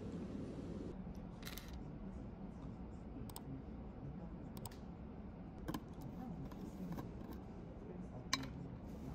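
Scattered light clicks and taps of things handled at a desk, over a steady low room hum. The sharpest click comes near the end, as a plastic snack jar and its lid are handled.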